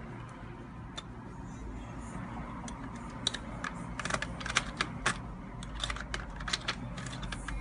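Lock picks working the pin tumblers of a Yale deadbolt: irregular small clicks, a few at first, then coming thicker from about three seconds in as the pins are set.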